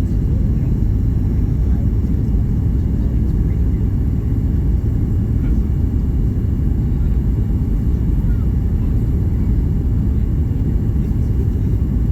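Steady low rumble of a Boeing 737 MAX 8 jet airliner, heard from inside the passenger cabin. It stays level throughout, with no change in thrust.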